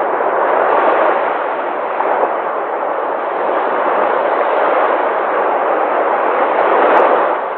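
Sea waves rushing and breaking in a continuous wash, swelling about a second in and again near the end.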